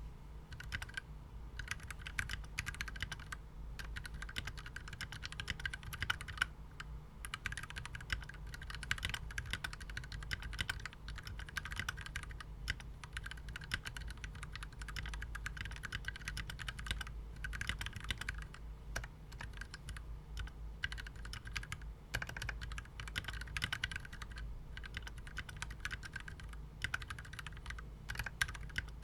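Typing on a KBDfans Tofu mechanical keyboard with Gateron Yellow linear switches: fast, continuous runs of keystrokes broken by short pauses every few seconds, over a faint steady low hum.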